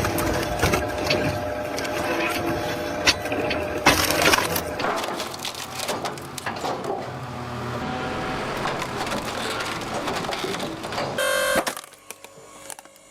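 Wood crackling and splintering as a press crushes it: a dense run of sharp cracks that thins out after about five seconds, then a quieter working noise that drops away suddenly near the end.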